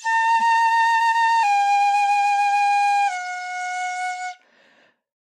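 Shinobue (Japanese transverse flute) playing three held notes in the low octave, fingerings 6, 5 and 4, each a step lower than the one before. This is the beginner's practice sequence for finding a good tone. The first note wavers slightly and the last is softer, with a breathy fade at the end.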